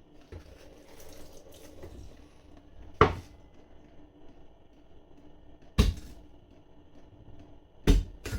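Kitchen cleaver chopping down through a sweet corn cob onto a chopping board: three heavy strikes, two to three seconds apart, with a soft hiss in the first two seconds.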